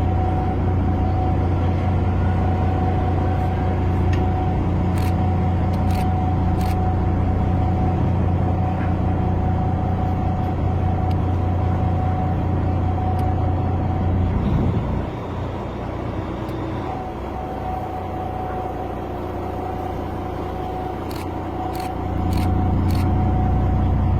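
Steady low engine hum with a thin steady tone above it, dipping quieter for several seconds about two-thirds of the way through before coming back up, with a few faint clicks.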